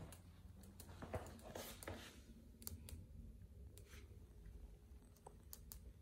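A Samsung UE43TU7020 LED TV giving faint, irregular clicks, about a dozen scattered sharp ticks with a short stretch of crackly static. This is the intermittent static-and-click noise the TV sometimes makes.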